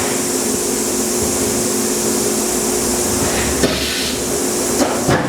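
Hyundai-Wia F400VM vertical machining center running with a steady hum and hiss while its side-mount 30-tool automatic tool changer makes a tool change, with a sharp clunk about three and a half seconds in and a few more clunks near the end.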